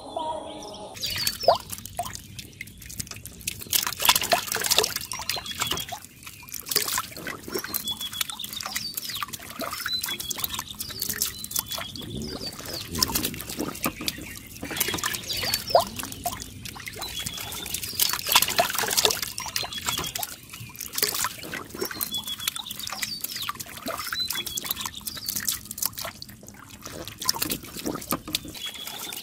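Muddy water trickling and pouring down a mud channel into a small mud-walled pit trap, with catfish splashing and thrashing in the shallow water in irregular sharp slaps. It starts about a second in.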